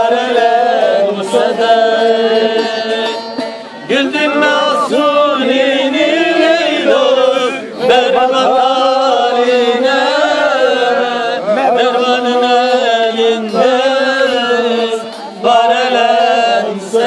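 Live Turkish folk music: a bağlama (long-necked saz) being strummed while men sing a melismatic folk song in long phrases, with brief breaks between the sung lines.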